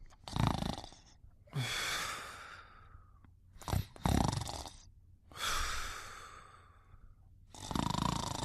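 Snoring in sleep: slow, noisy breaths, about four in all, each a short throaty intake followed by a longer airy out-breath that fades away.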